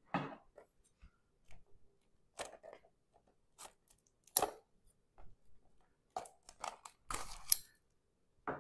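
Plastic shrink-wrap being cut and peeled off a small cardboard box: a string of short, scratchy crinkles and rustles. The sharpest comes about halfway through, and a cluster follows near the end.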